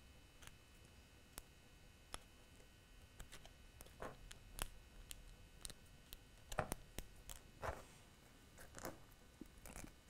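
Faint, irregular small clicks and ticks of tiny 3D-printed plastic parts being worked off their printed mounts by fingers.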